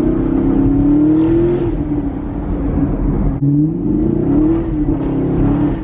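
Chevrolet Camaro ZL1's supercharged V8 accelerating hard, heard from inside the car with the windows down. The engine note climbs, drops suddenly at a gear change about three and a half seconds in, then climbs again.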